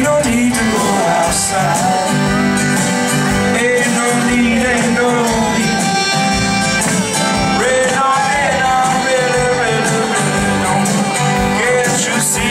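Live band playing an upbeat acoustic song through the concert PA, with acoustic guitar and accordion.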